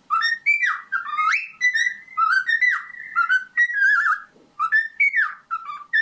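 A pet bird whistling a rapid run of short melodic phrases, clear notes sliding up and down with brief pauses between them.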